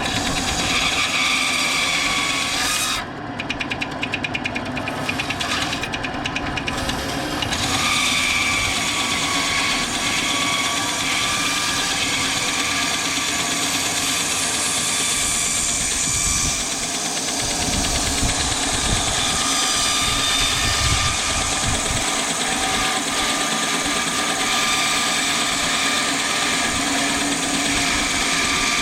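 SKIL 9-inch benchtop band saw running steadily while a piece of wood is fed through the blade.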